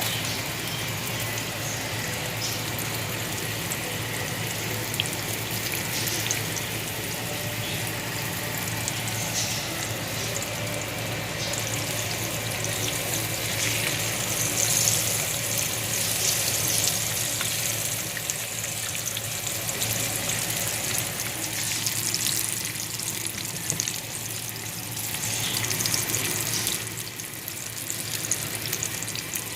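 Breaded green tomato slices frying in hot oil: a steady sizzle with fine crackle, over a low steady hum.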